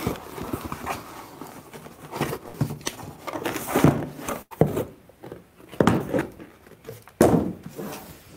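Corrugated cardboard scraping and rustling as a boxed phone media kit is slid out of its shipping carton, with irregular knocks and a sharper knock about seven seconds in.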